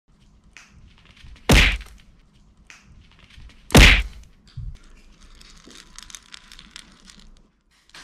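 Two loud thunks about two seconds apart, followed by a stretch of quick small clicks and rattles of dry kibble on a plastic feeding plate as puppies eat.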